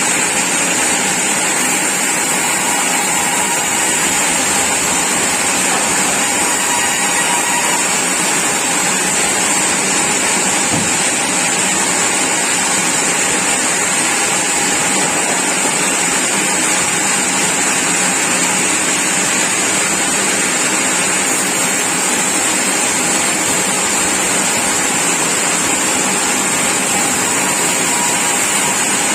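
Sawmill saw running: a loud, steady noise with a constant high whine.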